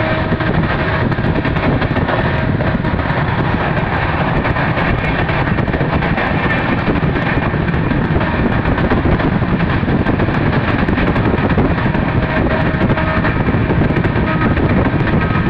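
Indian Railways express train running through a station at speed without stopping, heard at an open coach door: a loud, steady rush of wheels on rail and wind.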